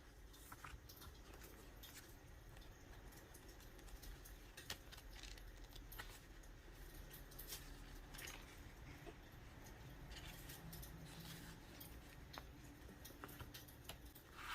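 Faint scattered clicks and small crackles from stickers and paper being handled and a wood fire crackling, over a low steady hum.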